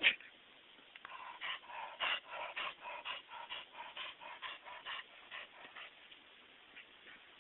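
A keeshond eating grass close to the microphone: a sharp click at the start, then a quick rhythmic run of chewing and breathing sounds, about three a second, for some five seconds.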